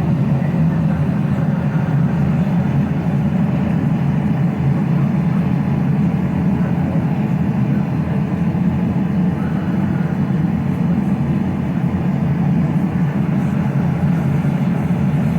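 Forge running with a steady low roar, no hammer blows.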